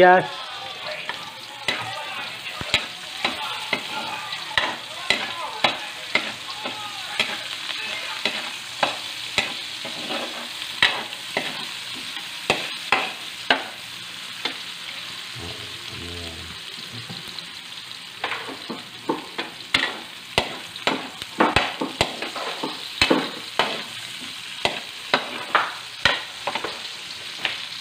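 Garlic and onion sizzling as they sauté in hot oil in a wok, with a metal ladle clinking and scraping against the wok in irregular strokes as they are stirred.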